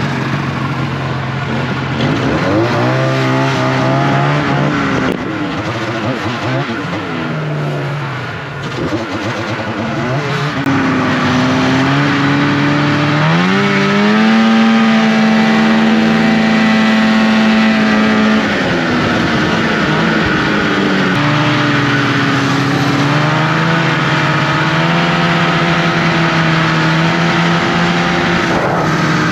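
Snowmobile engine running under throttle on the trail. Its pitch climbs and drops as the revs change, most strongly from about 13 to 18 seconds in, then settles to a steadier note.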